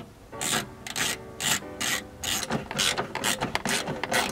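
Hand socket ratchet clicking in short strokes, about three a second, as it undoes an 8 mm bolt.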